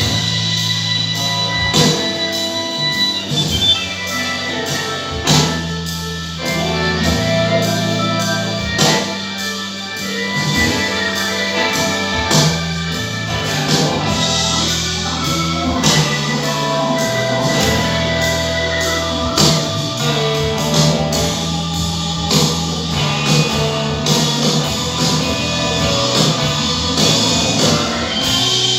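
Music with a steady beat and sustained melodic notes.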